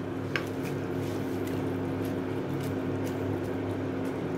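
Steady electrical hum of an induction cooktop heating a pot of soup, with a small click about a third of a second in and a few faint ticks of a spoon against the metal pot.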